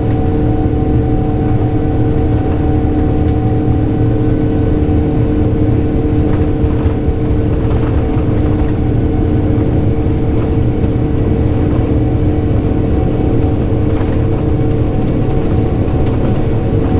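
Jet airliner's turbofan engines at takeoff power, heard inside the passenger cabin: a loud steady rumble with several steady hums held throughout.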